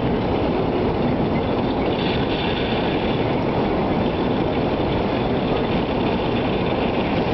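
Strong storm wind buffeting the microphone: a loud, steady, dense rumble.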